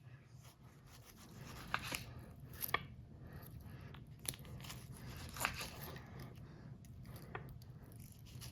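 Small multi-tool knife blade sawing through a tomato: faint rasping and tearing of the skin and flesh, with a few scattered sharp clicks. The blade cuts it poorly.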